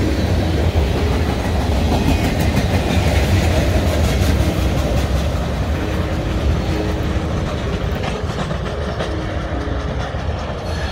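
Freight train cars rolling past with their wheels clacking over the track. The sound eases off slightly in the second half as the end of the train goes by.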